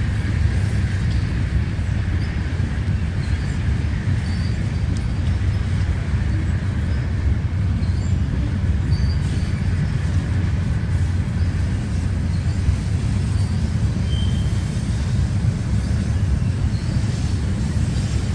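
Freight train of loaded centerbeam lumber cars rolling past, a steady low rumble of wheels on rail.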